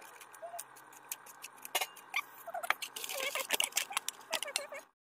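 Coated chicken pieces frying in hot oil, crackling and popping with many sharp ticks that grow denser over the last two seconds. The sound cuts off suddenly near the end.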